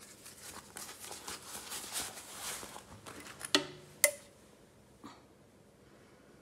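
Rustling of rubber gloves and hands handling things at a countertop, then two sharp knocks of containers set down on the counter about half a second apart, the second ringing briefly.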